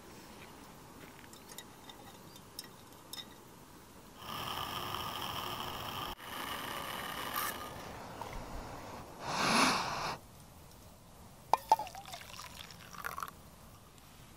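Water pouring into a metal camping pot in two pours, followed by a brief louder rush and a few light metallic clinks of the cookware.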